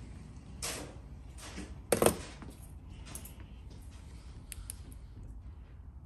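A few sharp metallic clicks and knocks from a Baldwin mortise lock body and a screwdriver being handled on a workbench, the loudest a short clatter about two seconds in, over a low steady hum.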